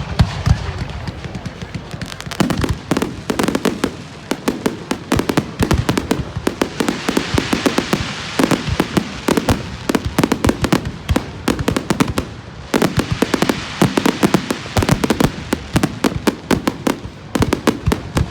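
Firecrackers and fireworks going off in dense, rapid volleys of sharp bangs and cracks, many per second, easing off briefly a few times before picking up again.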